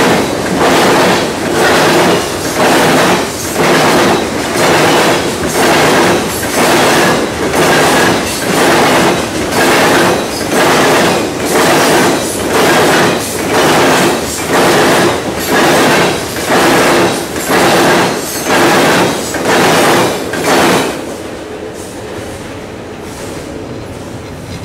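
Freight train of open-top hopper cars rolling past, its wheels clattering on the rails in a rhythmic surge about once a second. About 21 seconds in the last car goes by and the sound drops to a fainter, steady rumble as the train moves away.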